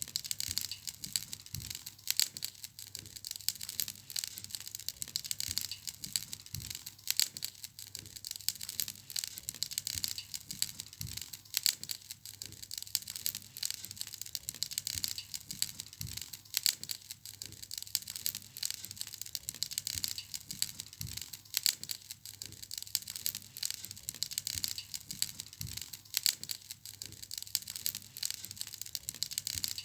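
Wood fire crackling in a fireplace: a dense, irregular run of small sharp crackles and snaps over a steady hiss, with a soft low pop every four to five seconds.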